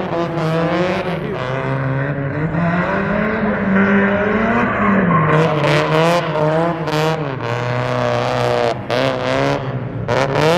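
Car engine revving hard, rising and falling in pitch, as a car spins donuts on the lot; a harsh tyre screech joins in from about halfway through.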